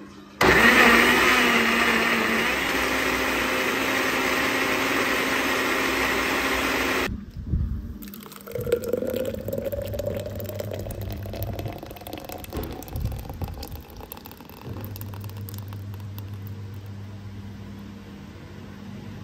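Countertop blender motor running at speed, blending a thick spinach smoothie for about seven seconds, then stopping abruptly. Then the thick smoothie is poured into a glass, with a faint tone that slowly rises in pitch as the glass fills.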